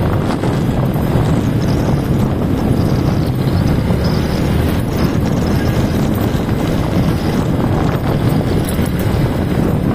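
Motorcycle riding along a cobblestone street: steady engine noise mixed with a fast, irregular rattle of the tyres over the paving stones.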